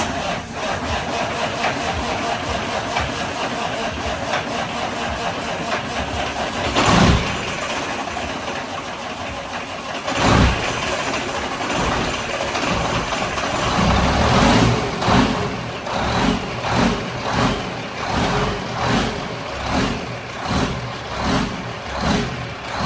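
Freshly overhauled diesel engine of a Peterbilt glider semi truck starting and running on its first fire-up after the rebuild. There are two loud surges about seven and ten seconds in, and later the sound rises and falls in a regular pulse about every two-thirds of a second.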